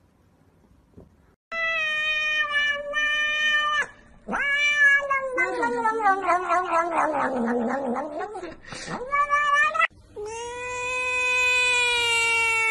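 Domestic cats yowling and meowing loudly. After a quiet first second and a half comes a run of long, drawn-out meows, one of them rough and wavering. After a short break near ten seconds comes a single long, steady yowl.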